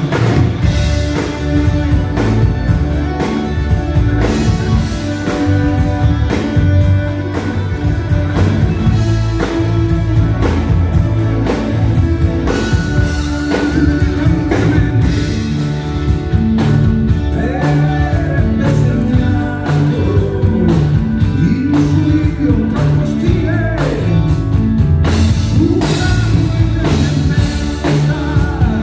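Live folk-rock band playing loudly: violin, electric guitars, bass guitar and drum kit, with a lead melody that bends and wavers in pitch over a steady beat.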